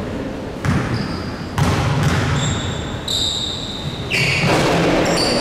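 A basketball bouncing twice on a hardwood gym floor, then a run of high, short squeaks at several pitches from sneakers on the court.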